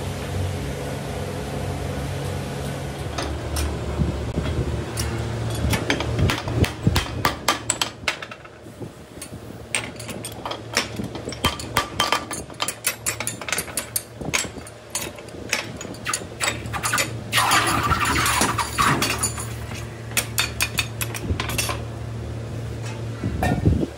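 Steel parts of a piston casting die and hand tools clanking and clinking irregularly as the die is handled and set up, over a steady low machinery hum; a busier stretch of rattling comes a little after the middle.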